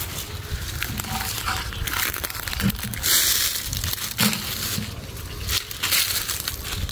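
Woven plastic sacks and dry papaya leaves crinkling and rustling as they are handled, in an irregular run of crackles with louder bursts partway through.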